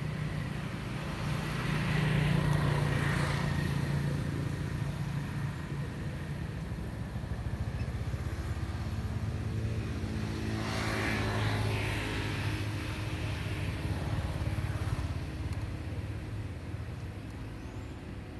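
Motor engine hum running throughout, swelling louder twice: about two seconds in and again around eleven seconds.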